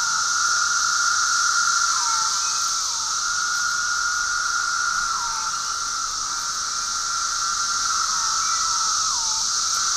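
Chorus of 17-year periodical cicadas singing in their millions: an ear-splitting, unbroken drone with a hiss above it. Several times, single males' calls slur downward in pitch at their ends.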